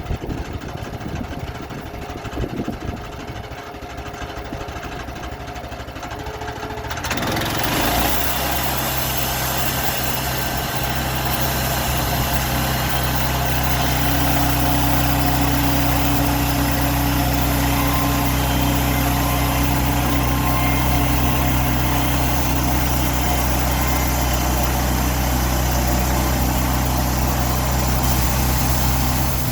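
Portable sawmill's gas engine running steadily, coming in suddenly about a quarter of the way in; from about the middle a steady higher tone joins it.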